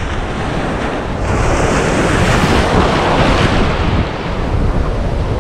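Ocean surf breaking and washing around a wader standing knee-deep. A wave's hiss swells about a second in and fades after about four seconds, over a steady low rumble of wind on the microphone.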